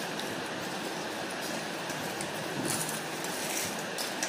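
Steady room hiss with a few faint crackles of crisp chips being chewed and picked up from steel plates.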